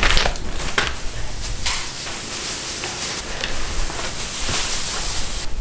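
Compressed straw rustling and crackling as a freshly cut bale is pulled apart and tossed by hand onto the floor.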